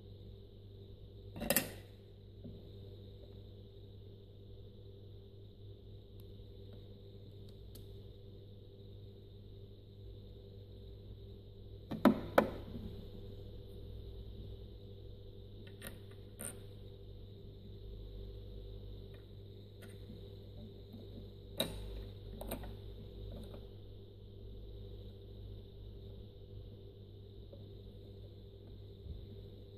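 Sharp plastic clicks and taps from a Janome Decor Excel II 5024 sewing machine's drop-in bobbin area as the clear bobbin cover is released and lifted off and a plastic bobbin is dropped in and pressed into its case. There are a few scattered clicks, the loudest a close pair about twelve seconds in, over a steady faint hum.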